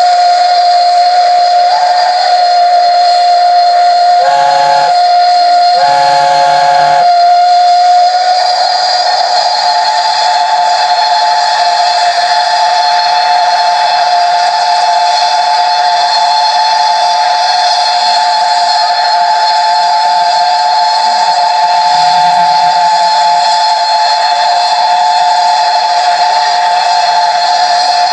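Two steam locomotive whistles, a GWR King-class 4-6-0's and an LNER A4 Pacific's, held together in one long continuous blast over a hiss of escaping steam. A second close tone joins about eight seconds in. Two short, lower-pitched hoots cut in briefly about four and six seconds in.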